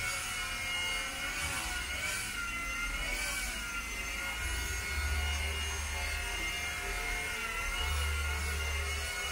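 Small four-channel RC helicopter hovering, its electric motor and rotor giving a steady high whine whose pitch wavers gently as the flight is trimmed. A low rumble swells twice, midway and near the end.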